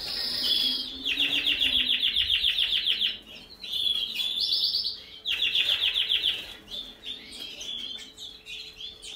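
Canary song: two long, fast, high-pitched rattling trills, one about a second in and one about five seconds in, with short clear whistled notes between them.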